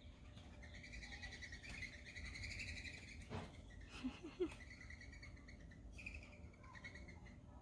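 Faint birdsong: a trilled, twittering high call lasting a couple of seconds, then again about five seconds in, with a couple of soft knocks in between.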